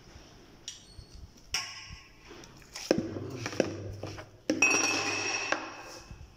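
Metal spoon chipping and scraping at a block of frozen raw dog food in a bowl: several short knocks and clinks, then a longer ringing scrape about four and a half seconds in.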